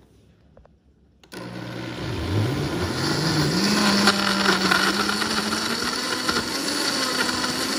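Countertop blender switched on about a second in, blending a smoothie of fruit, spinach and almond milk. The motor pitch dips as it starts, then climbs and holds a steady whine.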